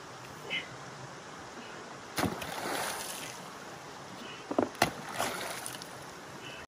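A hoe chopping into an earth and gravel bank and scraping soil loose, over the steady sound of a shallow stream. A strike about two seconds in is followed by a second of scraping and falling earth, then come two sharp strikes near the five-second mark.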